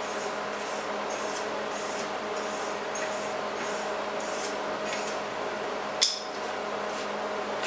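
MIG welding arc running steadily at about 16.5 volts and 200 inches a minute of wire feed, a continuous crackling hiss over the welder's steady hum. A single sharp click about six seconds in.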